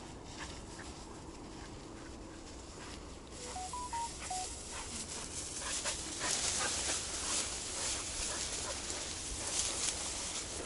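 Footsteps pushing through tall grass and willow brush, with stems swishing and crackling against legs and camera; the rustling gets louder from about halfway on. About three and a half seconds in comes a quick run of five short electronic beeps at different pitches.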